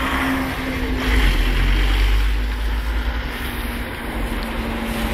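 Level-crossing barriers rising, their motor giving a steady low hum throughout, under heavy wind rumble on the microphone.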